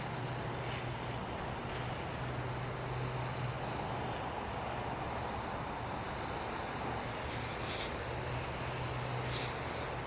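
Water spraying steadily onto a freshly sown garden bed as the carrot seed tape is watered in, an even hiss with a low hum underneath.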